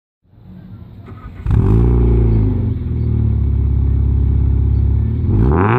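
Alfa Romeo 147's 1.6 Twin Spark four-cylinder engine, heard from behind through its quad exhaust tips, idling quietly at first. About a second and a half in it is revved up and held at steady high revs. Near the end it is blipped higher once more.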